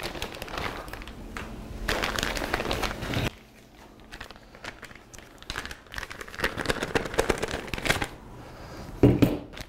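Plastic parts bags crinkling as they are handled and opened, loudest for the first three seconds, then quieter intermittent rustling.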